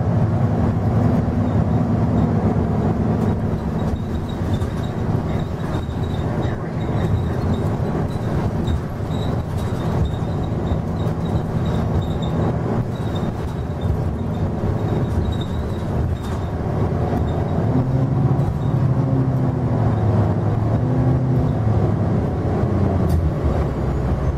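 Nova LFS city bus's Cummins ISL9 inline-six diesel and Allison B400R automatic transmission running under way, heard inside the passenger cabin as a steady drone with road noise. The engine note wavers and shifts in pitch about two-thirds of the way through.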